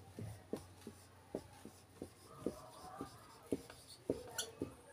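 Whiteboard marker writing on a whiteboard: faint, irregular taps and strokes of the felt tip as letters are written, with a brief higher squeak near the end.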